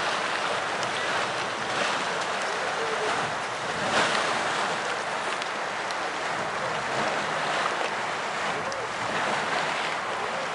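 Steady rushing of wind on the microphone mixed with small lake waves lapping against a rocky shore.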